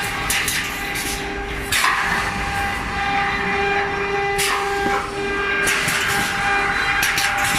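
Automatic steel wire mesh welding machine running: a steady hum with irregular sharp bursts of hiss and clatter every second or two as it works.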